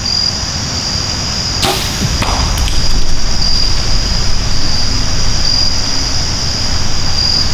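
A bow shot at a whitetail buck: a sharp snap about one and a half seconds in, then a second, softer knock about half a second later. A low rumble follows as the deer runs off. Insects chirp steadily in a high band throughout.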